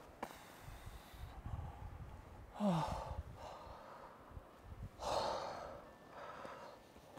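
A rock climber breathing hard with effort: a loud exhale with a falling grunt about two and a half seconds in, then another forceful breath out about five seconds in and a smaller one after it.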